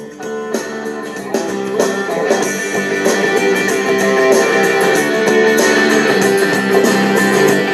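Guitar music played through a loudspeaker, its volume turned up over the first few seconds and then held loud.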